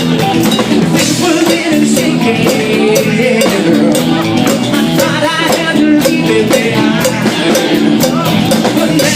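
Live rock band playing loudly, with a steady drum beat, guitar and singing.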